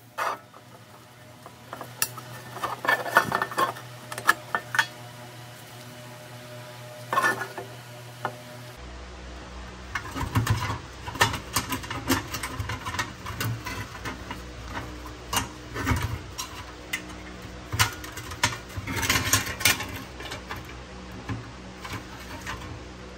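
Irregular light metallic clinks and knocks, with a short ring after some: pressed-steel toy parts and hand tools being handled on a workbench.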